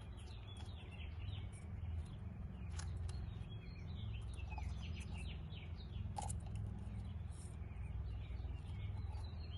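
Birds chirping in the background over a steady low rumble, with a couple of faint clicks.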